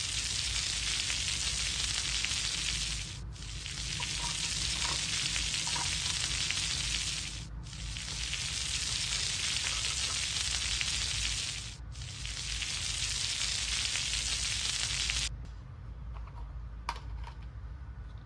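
Sizzling frying sound from a toy kitchen stove, which breaks briefly about every four seconds and stops suddenly near the end, followed by a few light clicks.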